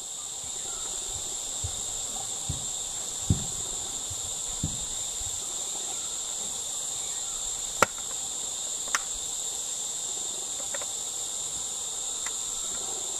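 Steady, high-pitched chirring of an insect chorus, unbroken throughout, with a few brief knocks and two sharp clicks.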